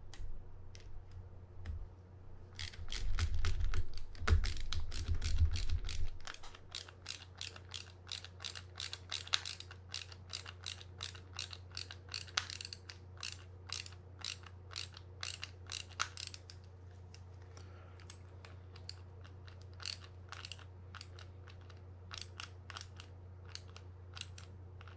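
Ratcheting screwdriver clicking in quick runs, about three to four clicks a second, as it drives the small screws that hold the pinion bearing down into a spinning reel's body. There are heavy handling thumps in the first few seconds, and the clicks thin out after about sixteen seconds.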